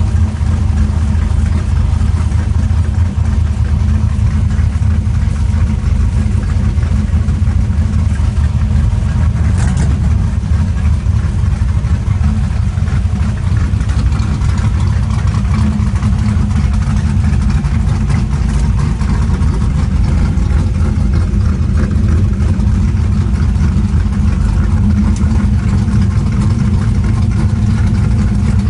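Drag race car's engine idling steadily, loud, heard from inside the car.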